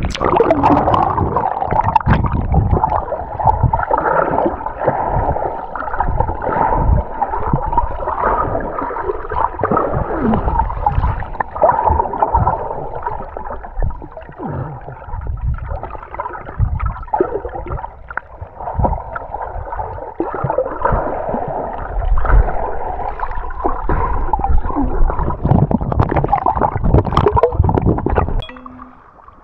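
Muffled gurgling and sloshing of sea water around a camera held in and under the water, with irregular surges and splashes. It drops away sharply near the end.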